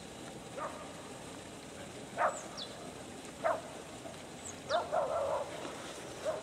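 Mallard ducks quacking: single short quacks a second or so apart, with a quick run of quacks about five seconds in. Faint high chirps of small birds sound behind them.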